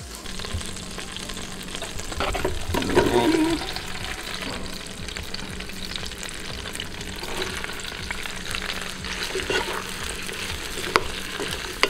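Onions, celery and garlic frying in melted butter in a pot, a steady crackling sizzle. A wooden spatula stirs and scrapes them toward the end, with a sharp tap near the end.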